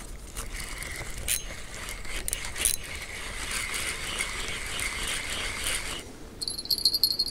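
Spinning reel being cranked, its gears and rotor giving a steady ticking whir for about six seconds. Then insects chirp in fast, even pulses.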